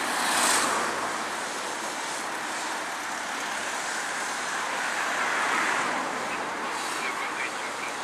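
Road traffic: a steady rush of passing cars' tyres and engines, swelling about half a second in and again around five seconds in.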